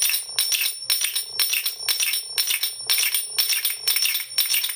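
Cheap brass zills (finger cymbals), each fastened by a single hole, are struck together in a quick, even pattern of about four strikes a second. Each strike rings with a high, bright tone that carries on between strikes.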